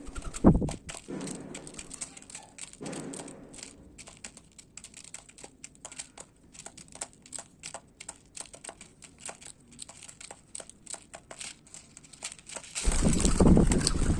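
Birds pecking and cracking seed, heard as a steady scatter of small sharp clicks and crunches. There is a louder knock about half a second in and a louder rustling burst near the end.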